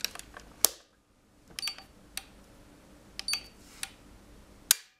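Plastic clicks of an EKF AVDT-63 RCBO being switched back on and a Sonel MRP-200 tester's buttons being pressed, with two short high beeps from the tester. Near the end comes a sharp snap as the breaker trips during the trip-time test at twice the rated residual current.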